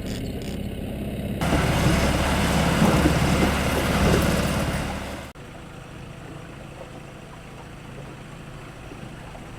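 Boat engine running with rushing noise, louder from about a second and a half in, then cutting off suddenly at about five seconds to a quieter steady running hum.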